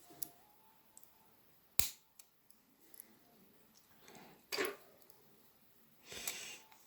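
A single sharp click about two seconds in, then two short bouts of scraping and rustling from small parts being handled.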